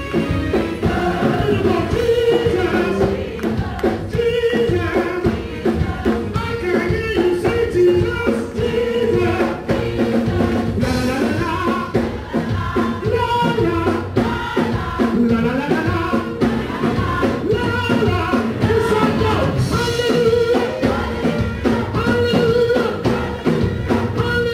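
Live gospel song: a lead singer and backing singers over a band of keyboards, synth bass, drums and lead guitar, with a steady beat.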